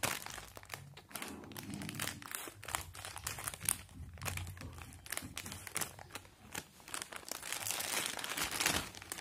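Scissors cutting open a clear plastic bag, with the plastic and the foil sachets inside crinkling and crackling as they are handled. There are many short crackles, a little busier near the end.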